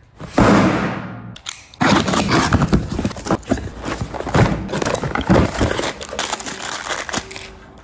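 Unboxing: a cardboard shipping carton and a product box being opened and handled, then parts in plastic bags being pulled out, with crinkling plastic and rustling cardboard that thins out near the end.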